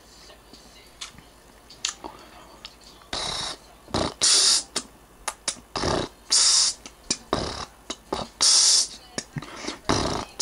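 Near quiet at first, then about three seconds in a song with a hard, percussive beat starts playing from a new MacBook Pro's built-in speakers: the welcome music of its first start-up.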